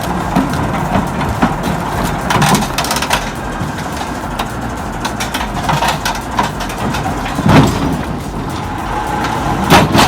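Heavy machinery running steadily, with three loud knocks or bangs: one about two and a half seconds in, a bigger one about halfway through, and another near the end.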